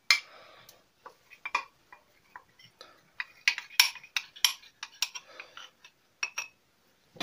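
A metal spoon scraping and clinking against the inside of a metal cup as thick PVA glue is scraped out into a bowl: irregular sharp clicks and taps, most frequent in the middle.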